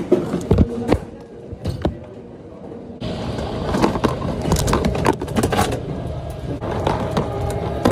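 Handling noise of a phone microphone moved against clothing: irregular rustling, bumps and clicks over a steady low hum, with the background changing abruptly about three seconds in.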